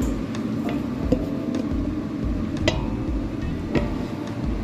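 A few sharp knocks and clicks of containers against the mixing bowl as the dry ingredients are tipped in on top of the Coca-Cola, over a steady low hum of kitchen ventilation.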